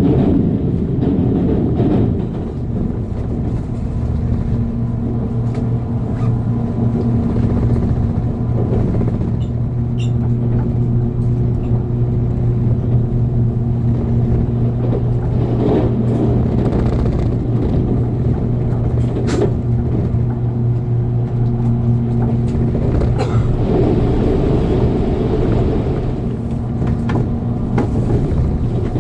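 JR Kyushu 787-series electric train running at speed, heard from inside the passenger car: a steady rumble with a low hum, broken by a few sharp clicks.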